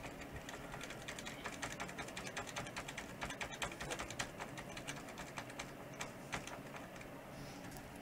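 Computer keyboard's Delete key being pressed rapidly and repeatedly, a fast run of clicks that thins out near the end, to get into the BIOS setup while the PC boots.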